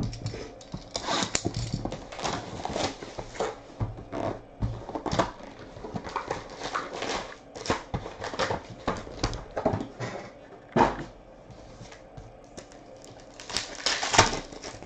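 Paper and foil rustling and crinkling as a trading-card hobby box is opened and its foil packs are handled. Near the end a foil card pack is torn open with a louder crinkling rip.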